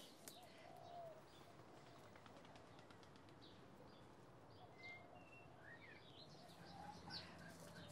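Quiet garden ambience with a few faint, short bird chirps, most of them around the middle.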